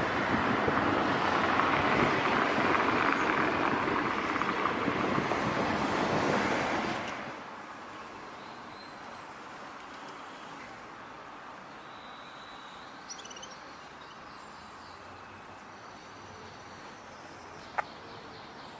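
Steady road-traffic noise for about seven seconds, then it drops away sharply to a quieter outdoor background with a low distant hum and a few faint bird chirps. A single sharp click comes near the end.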